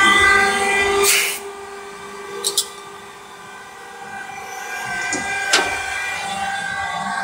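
CNC machining centre running, with steady whining tones from the spindle and axis drives. There is a sharp clack about a second in, after which the machine goes quieter, then a quick double click, and another clack near five and a half seconds as the running sound builds back up.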